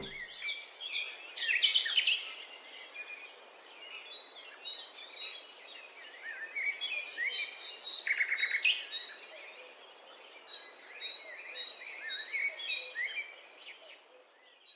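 Songbirds singing and chirping, several at once: a busy mix of short high chirps and warbles, with runs of evenly repeated high notes.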